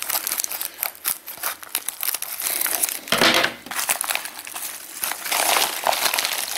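Padded plastic mailer crinkling and crackling as it is cut with scissors and pulled open by hand, with a louder burst of crinkling about three seconds in.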